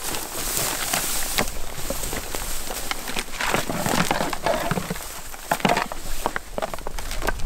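Rustling and footsteps through dry marsh grass, with irregular knocks and clicks from plastic duck decoys and their weight cords being handled.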